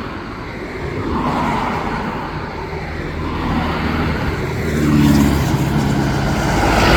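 Motor vehicle noise, engines and tyres on the road. A vehicle's engine hum grows louder about five seconds in, as if passing close by.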